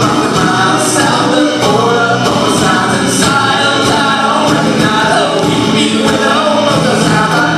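Live band music with layered singing voices over sustained electronic and instrumental tones, loud and steady, recorded from the audience in the hall.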